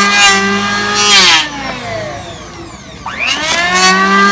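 Makita electric power tool running on wood, its motor giving a steady high whine with rough cutting noise over it. About a second and a half in the motor switches off and winds down; about three seconds in it spins up again with a rising whine and cuts again.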